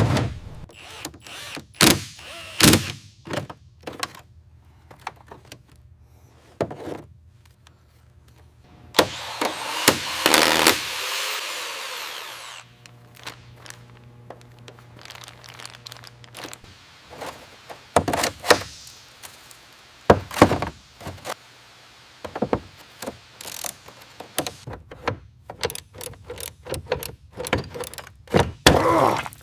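Workshop tool sounds: a long run of separate knocks and clicks, with a hiss lasting about three seconds starting about nine seconds in.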